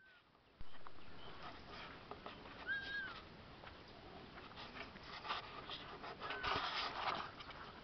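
A flock of emus moving close around the microphone on dry ground: scattered scuffs, clicks and rustling that grow busier in the second half. A short, arching whistle-like bird call sounds about 3 s in and again near the end.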